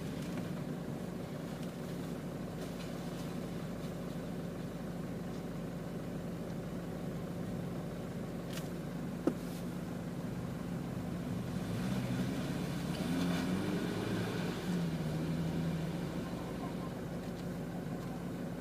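Four-wheel-drive engine idling steadily, heard from inside the cab, with a single click about nine seconds in. From about twelve to sixteen seconds in, another 4WD's engine rises and falls in revs as it climbs out of a muddy tyre-lined creek crossing.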